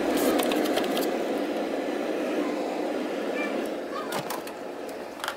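A steady rushing hum with scattered clicks and rustles as items are handled inside a freezer.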